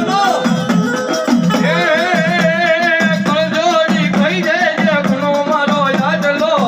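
Gujarati devotional music for the Mother goddess: a wavering, ornamented melody line over a steady drum beat and rapid shaker-like percussion.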